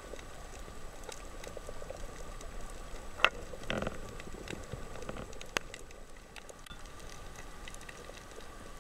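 Underwater coral-reef ambience heard through a camera's waterproof housing: a constant fine crackle, typical of snapping shrimp, with two sharper clicks a little over two seconds apart, a brief rustle between them and a faint steady hum.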